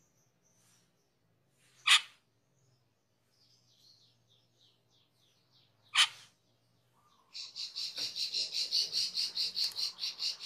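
Asian glossy starling (cucak keling) calling: two sharp single calls about four seconds apart, with soft twittering between them. From about seven seconds in comes a fast chattering run of notes, about seven a second.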